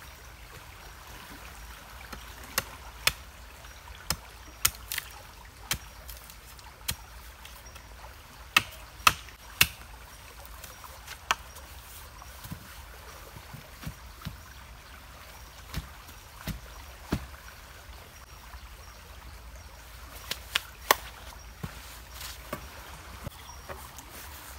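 Steady flow of river water, with about twenty sharp knocks at irregular intervals, in small clusters.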